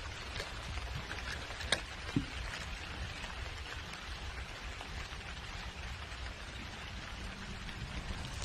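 Light rain falling on a pond and the grass around it, a steady hiss with scattered small drop ticks and a couple of sharper clicks about two seconds in.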